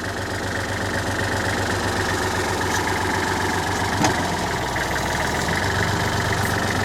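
Backhoe's diesel engine running steadily while the bucket digs, with one sharp knock about four seconds in.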